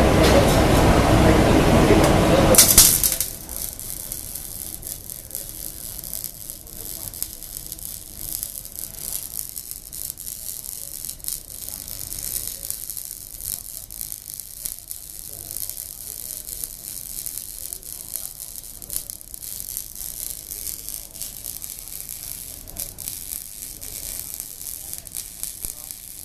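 A loud rushing noise stops abruptly about three seconds in. It gives way to the steady crackle and hiss of an electric arc welder at work.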